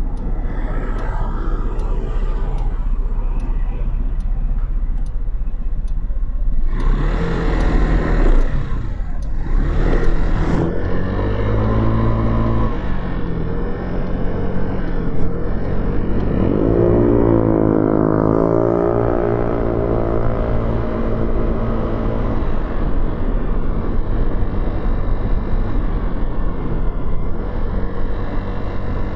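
Motorcycle engine idling, then pulling away with the engine note rising and falling as it accelerates through the gears, before settling into steady cruising. Two short bursts of rushing noise come early on, before it pulls away.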